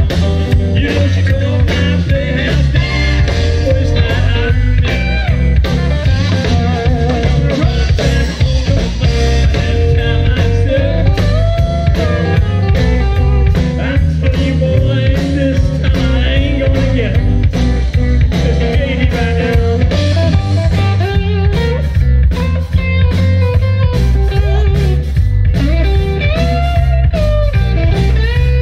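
Live blues band playing an instrumental passage: electric guitar lines with bending notes over bass and drums, amplified through stage speakers.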